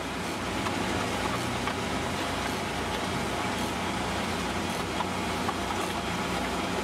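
Volumetric concrete mixer truck running steadily, its engine and mixing auger working as fresh concrete discharges down the chute.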